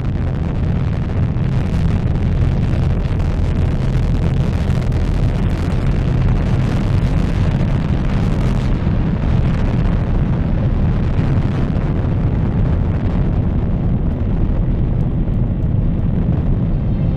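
Harsh noise music: a dense wall of crackling, distorted noise over a steady low drone, held at one loudness throughout. Near the end the highest hiss thins out.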